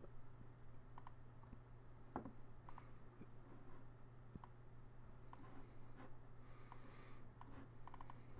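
Faint computer mouse button clicks: single clicks spaced roughly a second apart, then a quick run of clicks near the end, over a steady low hum.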